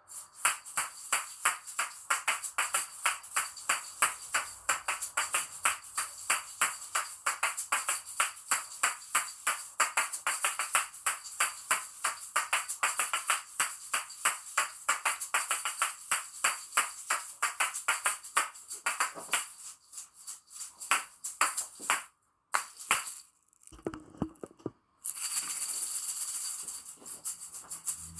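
A pair of Patica Neo asalatos, small plastic shaker balls on a string, played in a steady rhythm: the balls clack together about four or five times a second with the rattle of their fill. The clacks thin out and stop briefly after about twenty seconds, then a few seconds of continuous shaking come before the clacking starts again.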